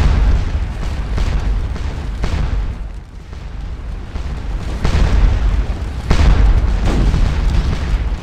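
Battle sound effects: cannon and musket fire, a series of booms roughly a second apart over a continuous low rumble, briefly easing off about three seconds in.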